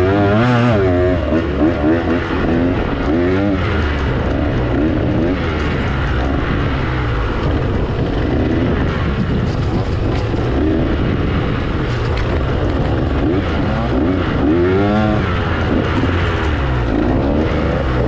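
Dirt bike engine being ridden off-road, revving up and down over and over so its pitch keeps rising and falling, over a steady low rumble.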